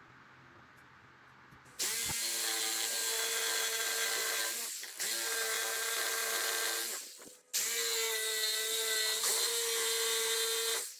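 An electric power tool running in three runs of a few seconds each, with short breaks between, its motor giving a steady whine over a loud rushing noise.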